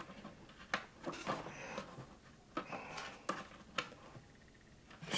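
Light clicks and small scrapes of a pickup fitting being screwed tight by hand at the tail end of an acoustic guitar body, about half a dozen scattered clicks with quiet between.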